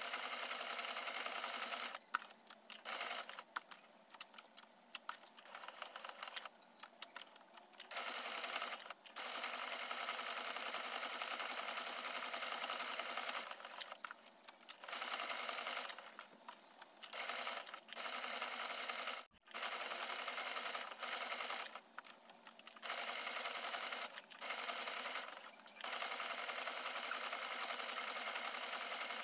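Household electric sewing machine stitching a curved seam through layered cotton fabric. It runs in stretches of a second to several seconds, with short stops between them.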